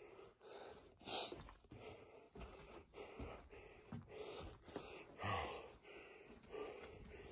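A person breathing hard, with quick panting breaths about twice a second close to the microphone. A few soft thuds of footsteps land on the sandy cave floor.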